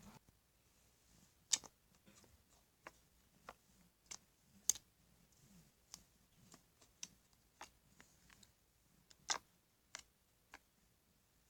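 Slime being worked by hand, giving scattered sharp clicks and pops as air pockets burst, a few much louder than the rest.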